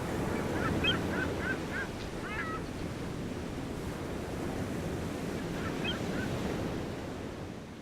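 Steady wash of surf with two quick series of bird calls, about five short chirps each, near the start and again about six seconds in; the ambience fades out near the end.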